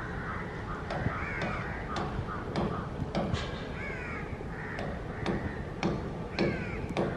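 Crows cawing again and again, short harsh calls over a low steady rumble.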